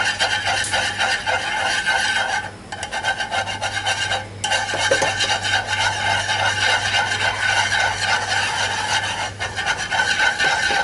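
Fast, steady rasping scrape made of many tiny strokes, like something being scraped or grated by hand, broken by two short pauses in the first half.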